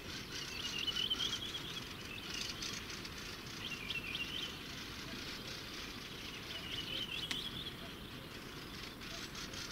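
A small songbird singing short warbled phrases four times, over the steady rush of a river.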